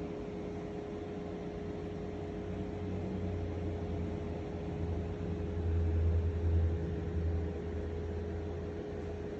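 Steady hiss with a constant mid-pitched hum, and a low rumble that swells in the middle and fades again.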